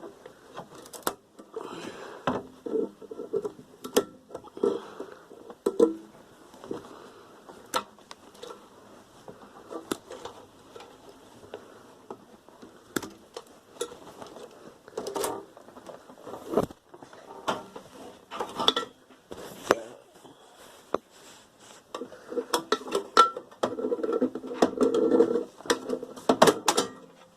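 Metal parts of a microwave oven clinking and clattering as it is taken apart by hand, with many scattered sharp knocks and a busier stretch of clatter near the end.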